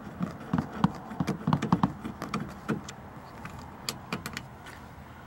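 A hand screwdriver working a screw into the door panel of a Bullnose Ford F-150, with a quick run of clicks and knocks through the first two seconds, then a few scattered clicks.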